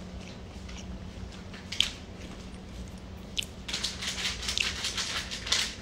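A plastic bread wrapper being handled: a couple of single clicks, then about two seconds of dense crinkling near the end.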